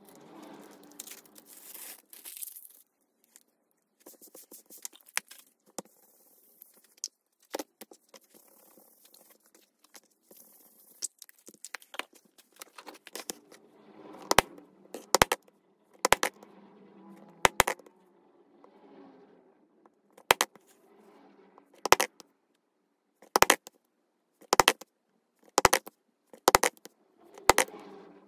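A mallet striking a steel leather punch held on the leather backing of a raccoon-fur strip laid on a punching board, giving sharp knocks roughly once a second through the second half. Before the knocks there is soft scraping and rustling as the leather and fur are handled.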